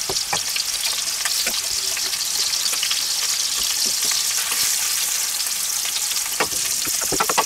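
Veal loin steak sizzling steadily in hot oil in a frying pan. A few light clicks of a wooden spoon stirring in a saucepan come in the first second and a half, and a single knock about six seconds in.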